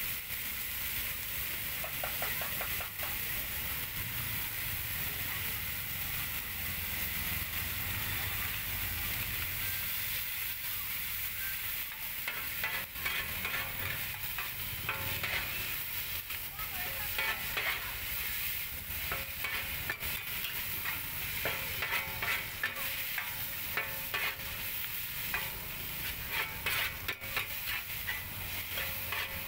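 Fried noodles and vegetables sizzling in a wide steel wok while a metal spatula stirs and scrapes them against the pan. The scraping and clinks grow busier from about twelve seconds in.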